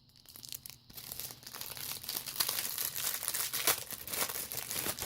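Sealed hanger box of football trading cards being torn open by hand: packaging crinkling and tearing in a dense, irregular crackle that stops abruptly near the end.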